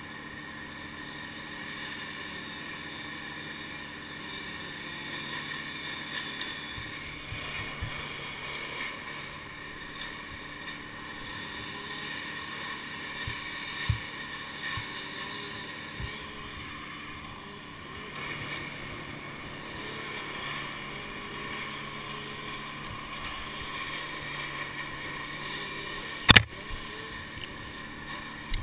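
Steady drone of an engine running at a distance, with wind on the microphone. A few light knocks, and one sharp knock near the end that is the loudest sound.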